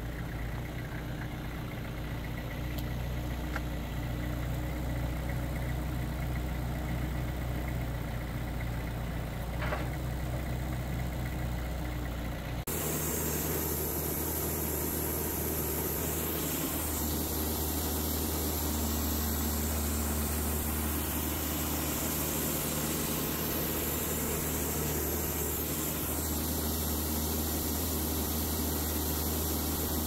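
An engine idling steadily. About 13 seconds in, the sound changes abruptly to another steady, noisier machine running.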